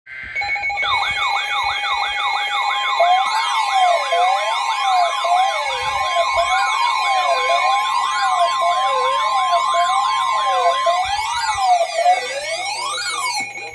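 Alert siren sounds opening an Emergency Alert System severe thunderstorm warning: several sirens wail and yelp over each other, some sweeping fast and some slow, layered over steady alert tones. The sweeps stop near the end while the steady tones carry on.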